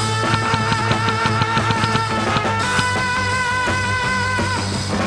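Rock music with a steady, fast drum beat under a held, slightly wavering melody line.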